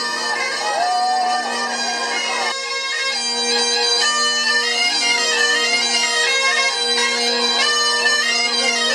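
Bagpipes playing a melody over a steady drone. The drone drops out for a moment about two and a half seconds in, then comes back.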